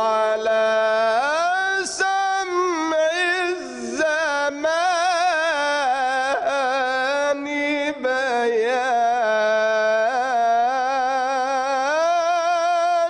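A man's solo, unaccompanied voice sings a long, ornamented melismatic line of an Islamic devotional hymn (inshad) in the Egyptian style. He holds notes and ornaments them with rapid wavering trills, and his pitch climbs again near the end.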